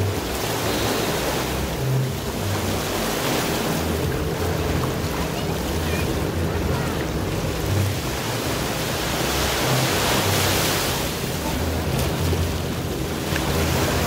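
Sea surf breaking and washing up a beach in slow swells, with one louder wash about ten seconds in, and wind buffeting the microphone.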